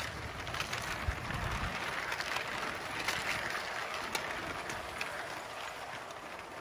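Brick-built model train (a PRR Doodlebug motor car pulling a coach) running on plastic track: a steady motor whir and rolling noise, with occasional sharp clicks from the wheels and track.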